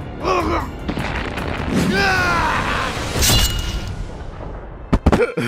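Background music with cartoon sound effects: a falling, wailing sweep about two seconds in, a boom a little after three seconds, and sharp impacts near the end.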